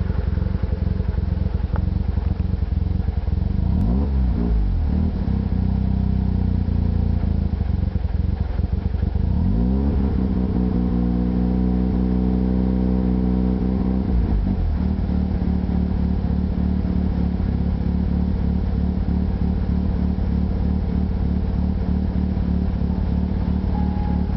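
Mazda RX-7 rotary engine idling roughly. It is blipped once about four seconds in, then revved and held higher for about four seconds before dropping back to the uneven idle.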